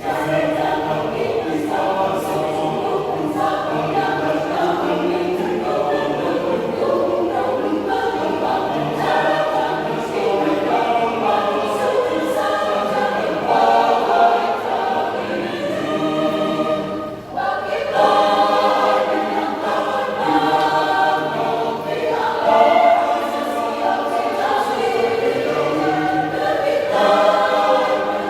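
Church congregation choir singing in several voice parts, with a brief break between phrases about seventeen seconds in.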